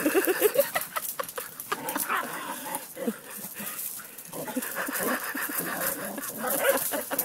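Dogs playing together: short whines and yips among many quick clicks and scuffs of paws on stone paving.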